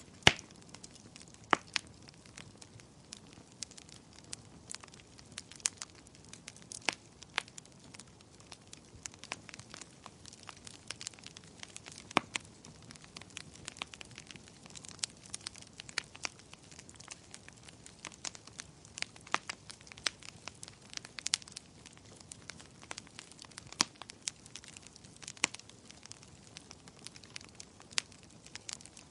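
Wood fire crackling: irregular sharp pops and snaps, several loud ones scattered through, over a low steady hiss of burning.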